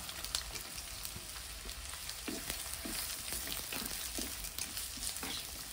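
Chopped onions sizzling in hot mustard oil in a clay kadhai, with a steady hiss and several short scrapes of the spatula as they are stirred.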